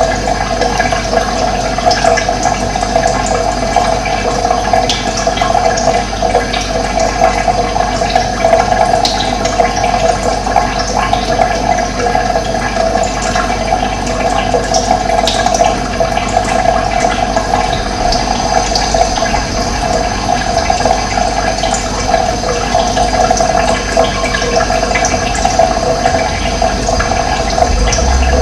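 Running water flowing steadily, with faint short bird chirps scattered over it.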